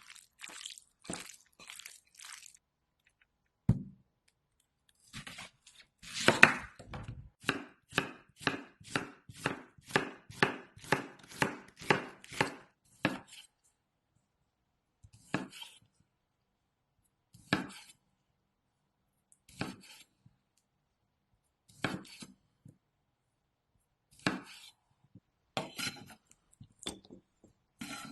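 Kitchen knife chopping food on a cutting board. A quick run of chops comes first, then a dull thump, then a steady run of about two chops a second, and finally single cuts every couple of seconds.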